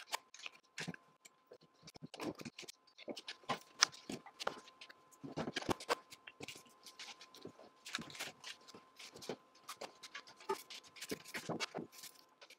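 Tools and clutter being cleared off a workbench by hand: irregular clinks and knocks of metal tools picked up and set down, with scraping and brushing across the bench top.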